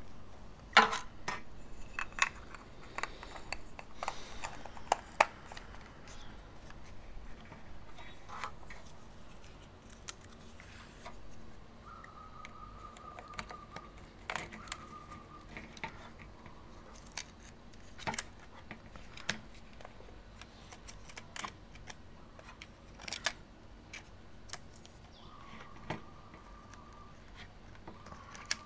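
Scattered clicks, taps and light rustling from a 35 mm film cartridge and its film leader being handled and fitted into a Canon EOS 500N's open plastic camera body, with a few sharper clicks about a second in and around five seconds. Two brief, faint, thin steady tones sound, one about halfway through and one near the end.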